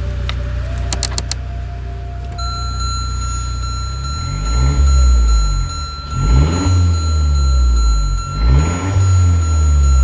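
Renault Kadjar turbo engine idling, then revved up and let fall back three times. A steady high-pitched electronic alarm tone starts about two seconds in and sounds throughout, the kind of warning a plugged-in engine monitor gives. A few clicks come just after the start.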